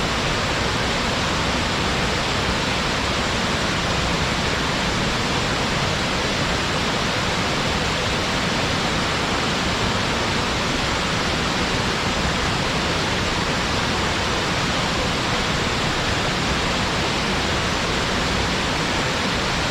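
Waterfall pouring steadily: a constant, even rush of falling water that does not change.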